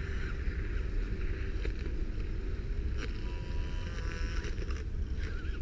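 An RC crawler's electric motors run steadily while its motor-driven weed-cutting blade chews through tangled plant matter, with a low rumble of wind on the microphone.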